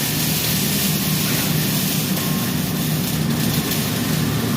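Electric arc welding: a steady crackling hiss from the arc over a steady low hum.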